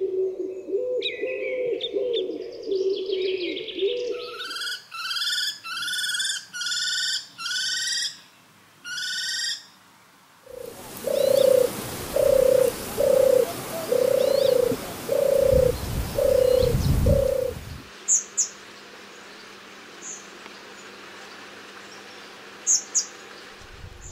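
Common wood pigeon cooing, with small birds chirping high over it. A bird then gives a run of six short, evenly spaced rising notes. A European turtle dove follows with seven rolling, purring phrases over a rushing noise, and a few faint high chirps come near the end.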